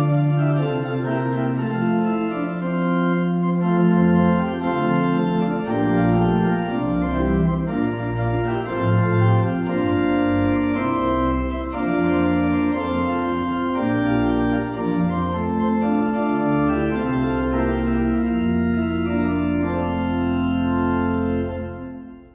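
Church pipe organ playing a hymn tune in sustained full chords over a moving pedal bass. The final chord dies away just before the end.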